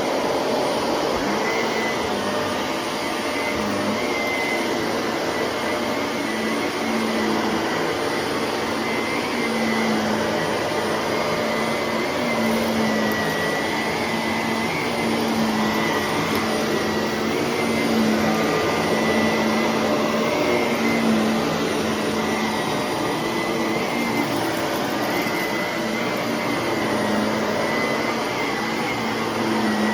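Shark vacuum cleaner running steadily, its motor giving a constant whine with a slight waver in pitch.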